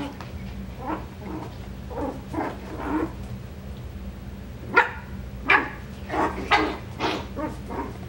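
Coton de Tulear puppies yipping and barking in play while they wrestle: a string of short, separate yips, soft at first, then louder from about five seconds in, with several coming quickly one after another.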